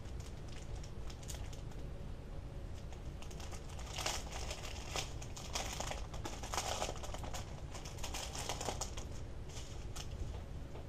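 Small plastic bags of diamond-painting drills being handled and crinkled, with light clicking of the drills shifting inside; the handling comes in busy bursts through the middle.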